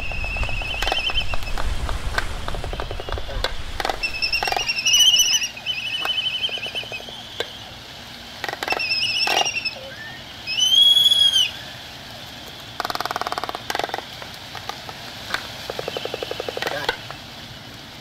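Albatrosses calling: a series of short, high warbling calls and a few arched whistled notes, broken several times by quick dry rattles.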